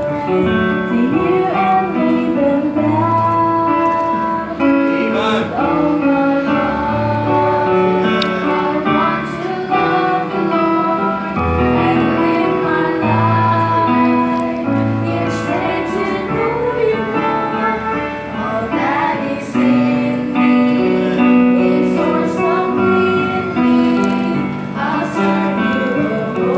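Two girls singing a Christian worship song into handheld microphones, one voice leading and then both together, over an instrumental accompaniment with held bass notes and sustained chords.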